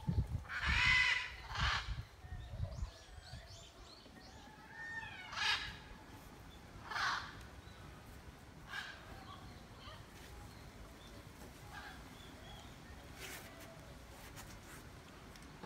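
Several short harsh calls from a bird or animal, spaced a few seconds apart, the loudest about a second in, with low rumbling in the first two seconds.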